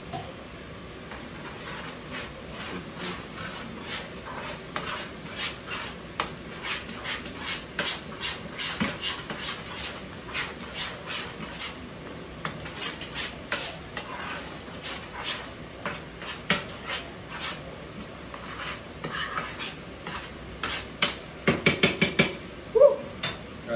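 Utensil stirring and scraping in a skillet of thick food, with irregular clinks against the pan, and a quick run of clicks near the end.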